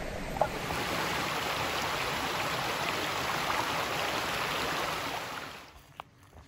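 Small cascading woodland waterfall: water rushing steadily over mossy rocks, which fades out about five and a half seconds in.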